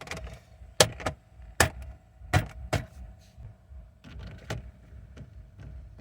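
Sharp clicks and knocks of plastic interior trim and parts being handled and fitted, about half a dozen loud ones in the first five seconds, over a faint steady hum.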